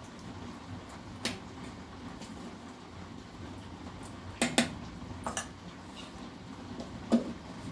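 A metal spoon clinks against a steel pan in a few sharp strikes: one about a second in, a quick pair midway, another pair just after, and one near the end. A low steady hum sits under it.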